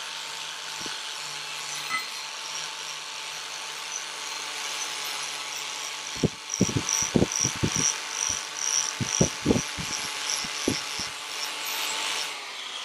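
Ryobi angle grinder running with a polishing disc on a propeller blade: a steady high whine with a hiss of the disc on the metal. From about six seconds in come a string of irregular knocks and clatter.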